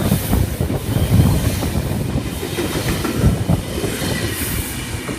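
Four-car V-set double-deck electric intercity train running through the station, its wheels rumbling and knocking over the rails. The sound fades steadily as the train moves away.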